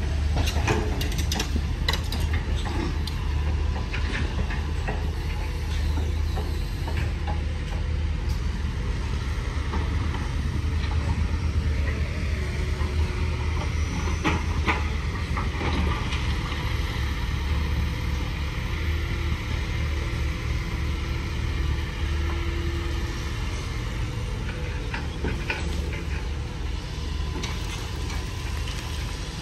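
Diesel engines of heavy construction machinery running steadily with a low drone, with occasional metallic knocks and clanks.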